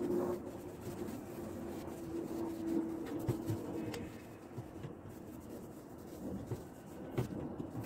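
A cloth rubbing and wiping over varnished wooden kitchen cabinet drawer fronts as they are polished, with a few light clicks.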